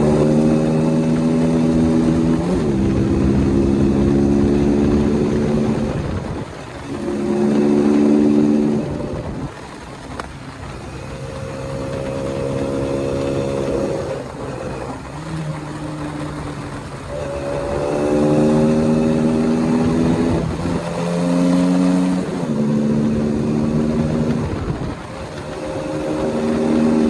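Single-cylinder KTM motorcycle engine revving up and dropping back several times, its pitch climbing and falling with each rev.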